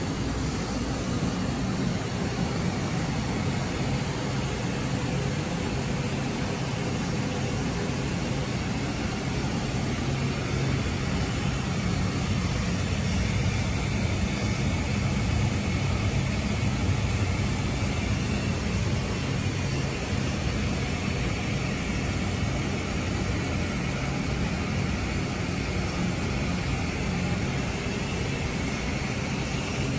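Steady industrial machinery noise in a machine shop: a constant low hum under a broad hiss, with no distinct knocks or events.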